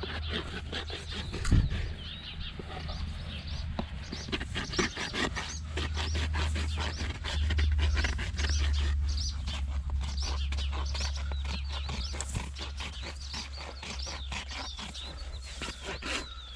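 Small birds chirping repeatedly, over many short clicks and a steady low rumble.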